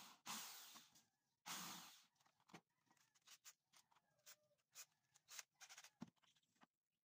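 A drill bit boring into a palochina pine board in two short bursts during the first two seconds. These are followed by light clicks and knocks as wood pieces and tools are handled on the bench.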